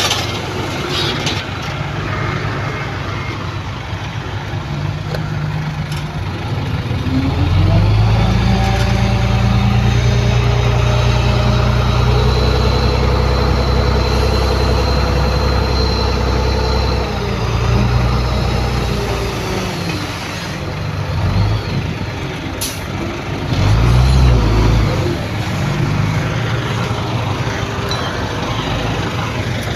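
Heavy diesel earthmoving machinery at work. An engine rises in pitch about eight seconds in and runs hard under load with a high whine on top, then eases off after about seventeen seconds. Another surge comes near the end.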